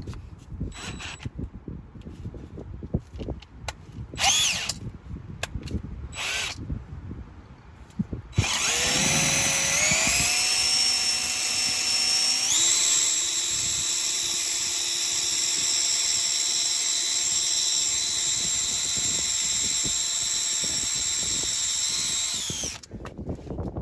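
Electric drill drilling out a stripped brake-rotor retaining screw. A few short blips of the trigger first, then one long continuous run whose whine rises and steps up in pitch before holding steady, stopping suddenly near the end.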